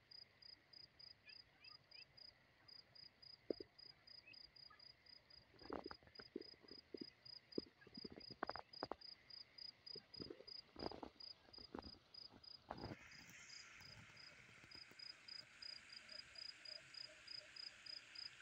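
Faint, steady insect chirping, a regular train of short high chirps at about three a second. Scattered soft knocks come in the middle, and a faint steady hiss joins about two-thirds of the way through.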